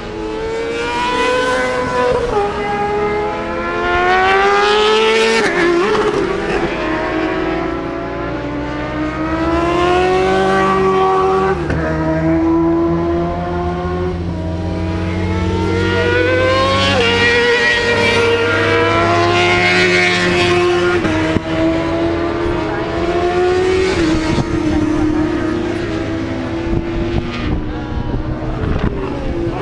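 Motorcycle engines on a racetrack, accelerating hard: each climbs steadily in pitch and then drops sharply at a gear change, over and over.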